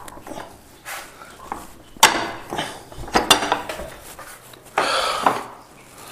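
A metal gate and its latch being opened: a few sharp metallic clanks and rattles about two and three seconds in, then a scrape lasting about half a second near the end.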